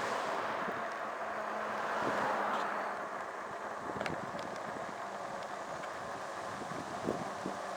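Wind rushing over the microphone while riding, with a faint steady hum underneath and a few light clicks.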